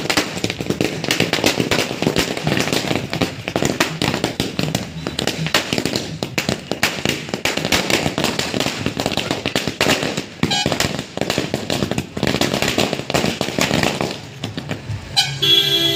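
A long string of firecrackers going off in a rapid, continuous chain of bangs, thinning out after about ten seconds and dying away near the end. A vehicle horn sounds briefly in the last second.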